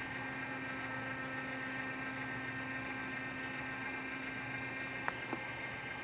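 Steady hum of a small electric motor turning a display turntable, with several held tones, and two faint clicks a little after five seconds in.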